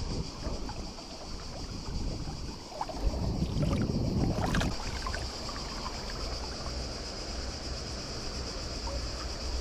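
River water running, with wind rumbling on the microphone and a steady high insect buzz over it. A few sharp clicks come about four and a half seconds in.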